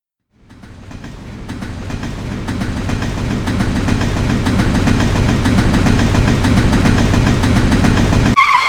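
A train's rumble and wheel clatter, fading in over the first few seconds and then running steadily. Near the end the rumble stops abruptly and a short horn-like tone sounds.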